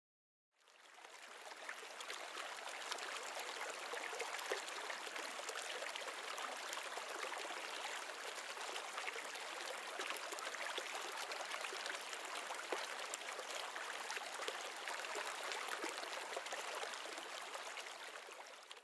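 A brook running steadily, its water rushing and babbling. It fades in about a second in and fades out just before the end.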